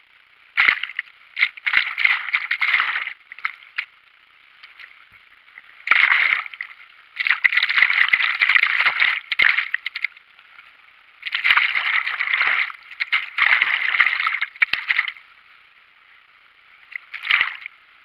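Fast Isar river water sloshing and gurgling against a camera held at the water surface. Four surges of a few seconds each come as waves wash over it, with a steady muffled rush between them.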